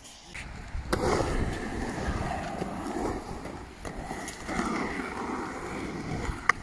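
Skateboard wheels rolling on the concrete of a skate bowl, a steady rumble that starts about a second in, with one sharp clack near the end.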